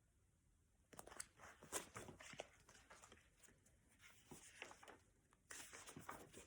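Faint paper rustling and soft clicks, like the pages of a hardcover picture book being turned and handled, in two short spells.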